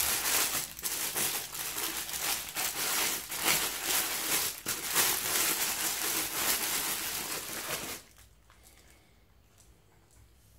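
Clear plastic bag crinkling and rustling in the hands as a plush toy is pulled out of it, a dense crackle that stops suddenly about eight seconds in.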